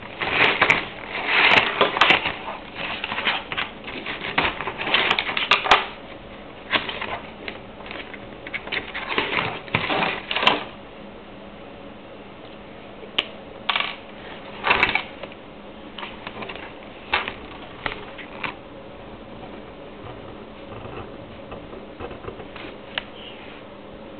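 Irregular clicking and tapping in quick clusters for about ten seconds, like typing on a keyboard, then a handful of scattered clicks.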